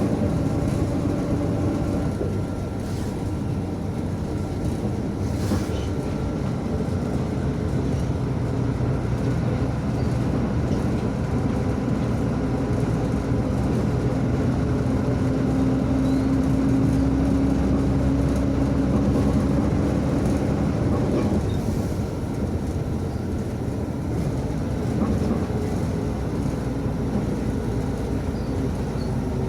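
Onboard sound of a MAZ 105 articulated diesel city bus running: a steady engine and drivetrain hum with rattling road noise. The engine note shifts about two seconds in and again about twenty seconds in.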